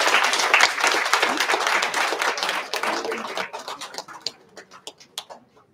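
Audience applause, many hands clapping densely at first, then thinning to a few scattered claps that die away near the end.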